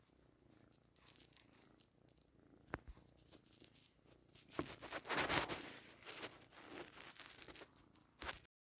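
A domestic cat purring faintly, with a sharp click about three seconds in and a burst of rustling around the middle.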